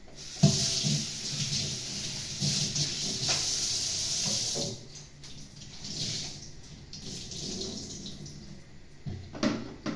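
Kitchen tap running into a stainless steel sink during washing-up. The flow comes on strongly about half a second in and eases off near the halfway point, leaving quieter splashing, with a couple of sharp knocks near the end.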